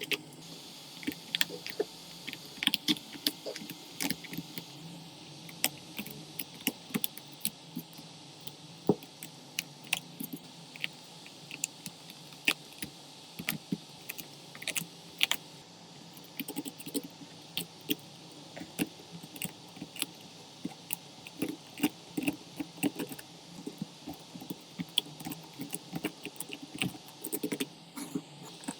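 Irregular small clicks and taps of hand tools on an iPhone 11 Pro Max while its cracked back glass is being removed, heard over a faint steady hiss.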